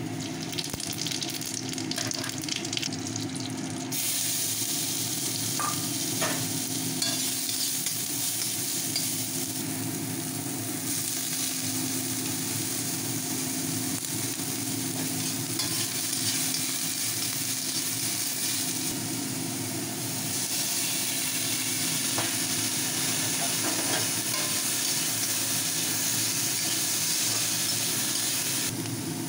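Chopped vegetables (onion, cauliflower, green capsicum) sizzling as they fry in hot oil in a pan while a spatula stirs them. The sizzle gets louder and brighter about four seconds in, over a steady low hum.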